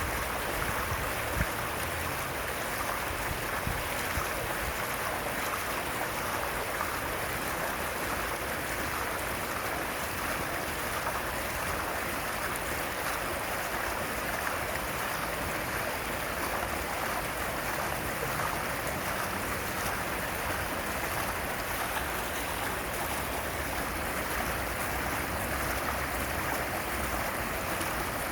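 Fountain water splashing and falling in a steady, even rush.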